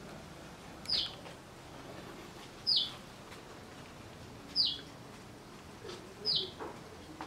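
A bird calling: a short, high chirp falling in pitch, repeated four times about two seconds apart over a faint steady background hiss.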